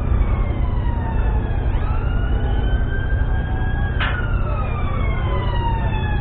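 A siren wailing, its pitch sliding slowly downward and jumping back up twice, the second time sharply, over a steady low rumble.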